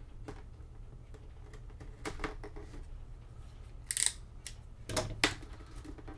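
Cardboard hobby box being handled while its seal sticker is cut: scattered sharp clicks and taps, with a short scratchy rasp about four seconds in, over a low steady hum.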